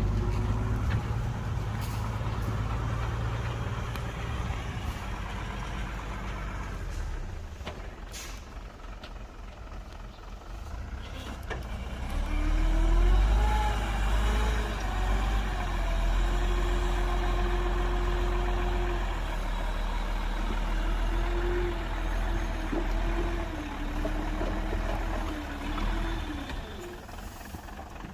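Heavy diesel construction machinery running with a low engine rumble. The rumble swells a little before halfway, and a wavering whine rides over it for most of the rest.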